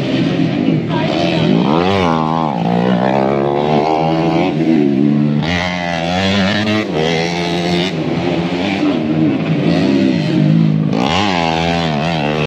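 Motocross dirt bike engines revving up and dropping back again and again as riders power through a dirt corner, with a steady lower drone underneath.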